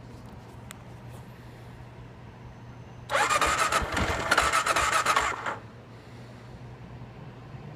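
Gen 1 Kawasaki KLR650's electric starter cranking the single-cylinder engine for about two and a half seconds, starting about three seconds in, then stopping without the engine firing: the bike's no-start fault.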